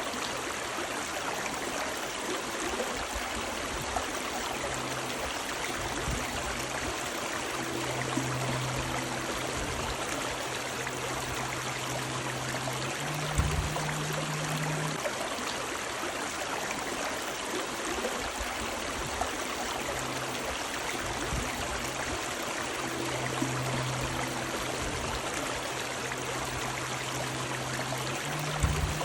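Running river water: a steady rushing stream with trickling and gurgling. A faint low hum comes and goes beneath it, with a soft thump about halfway through and another near the end.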